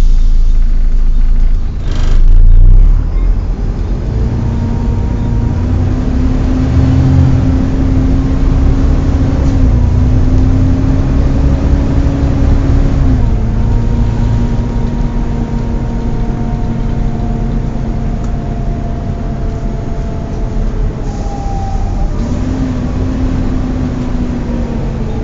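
Volvo B7TL bus's engine cooling fan whining steadily, like a vacuum cleaner, over the diesel engine's rumble; the whine's pitch shifts a little up and down several times. A loud knock comes about two seconds in.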